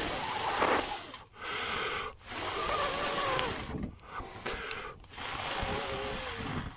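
A person blowing hard into the embers of a small campfire to bring back a fire he had smothered: about four long, forceful breaths, one after another with quick pauses between, the air whistling faintly.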